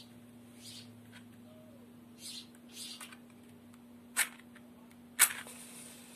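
A safety match struck twice on the side of a matchbox, two short sharp scratches about a second apart; the second, louder strike catches and the match flares alight. Soft handling rustles of the box and match come before.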